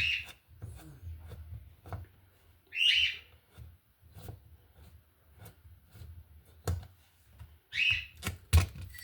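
A bird chirping in short, shrill calls, three times, among scattered light clicks and knocks from handling the outlet and its wiring.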